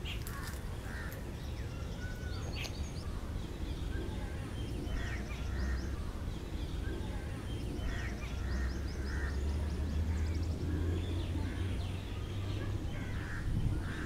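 Oriental magpie robin calling: short chirps and whistles at irregular intervals, over a steady low rumble in the background.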